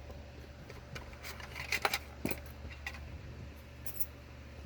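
Small metal lockpicking tools clicking and clinking against each other as they are sorted through in search of a plug follower, with a cluster of sharp clicks between about one and two and a half seconds in.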